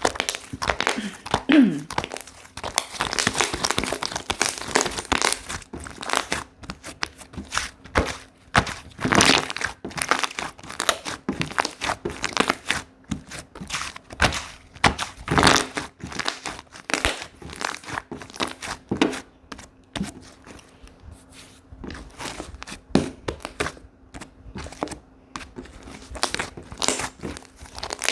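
Slime being squished, stretched and pressed by hand: a continuous irregular run of sticky crackles, clicks and small pops.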